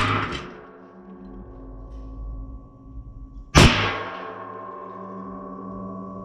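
Two shots from a Browning Buck Mark .22 LR pistol, one right at the start and another about three and a half seconds in, each followed by a steady ringing that lingers for several seconds.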